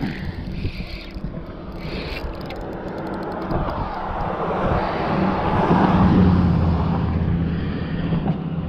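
A Shimano Stradic spinning reel being cranked in the first couple of seconds while a hooked fish is wound in. Then a passing vehicle's engine and tyre noise swells to its loudest about six seconds in and eases off.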